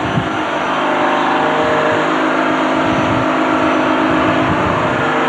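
An engine running steadily at a constant speed: a loud, even drone.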